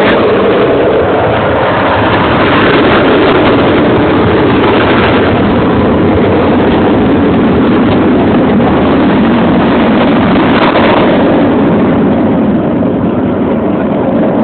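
Avro Vulcan B2 bomber's four Rolls-Royce Olympus jet engines heard in flight, a loud, steady rushing noise.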